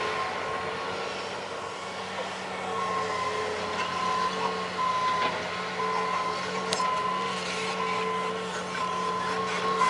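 John Deere excavator's diesel engine running steadily, with a backup alarm beeping about once a second from a few seconds in, and a few metallic clanks near the end.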